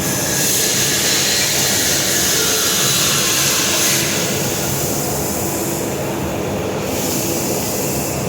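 Steady mechanical hum under a broad hiss, the hiss stronger for the first four seconds and easing after.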